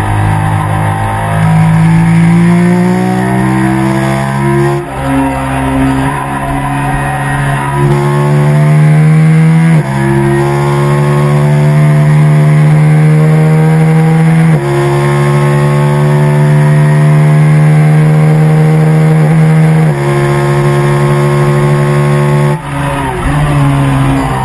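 Sport motorcycle's engine pulling hard at high revs, its pitch climbing under acceleration and dropping abruptly at about five gear changes.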